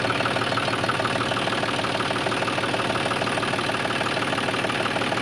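A homemade mini tractor's small motor running steadily, with a fast, even mechanical pulsing.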